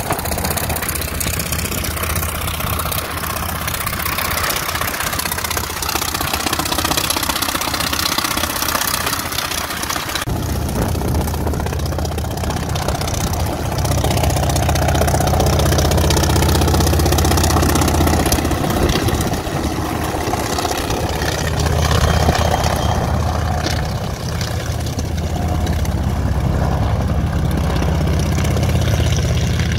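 Mi-1M helicopter's AI-26V nine-cylinder radial piston engine running steadily. About ten seconds in, the sound turns abruptly deeper and fuller, and it grows a little louder a few seconds later.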